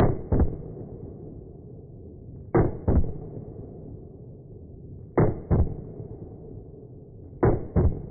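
Gunshots fired as double taps, four pairs about two and a half seconds apart, each shot dull with no crack in the highs and a rolling echo after it.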